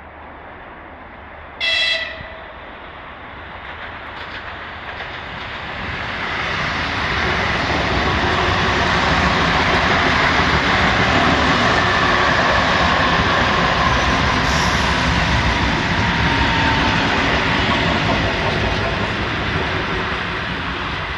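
Ivolga (ЭГ2Тв) electric multiple unit sounds a short horn blast about two seconds in, then approaches and passes close by. The rumble of wheels on rail builds to a loud, steady roar with a faint falling whine, easing a little near the end.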